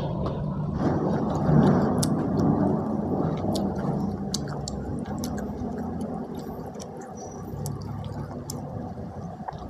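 Close-miked chewing of spicy stir-fried beef, with wet, squishy mouth sounds and many small sharp clicks, getting gradually quieter toward the end.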